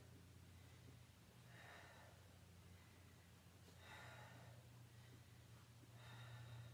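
Near silence over a steady low hum, with a woman's soft breaths about every two seconds, three in all.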